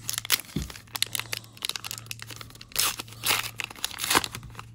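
A Flesh and Blood booster pack's foil wrapper being torn open and crinkled by hand. It makes a run of sharp crackles, with louder rustles about three seconds in and again near the end.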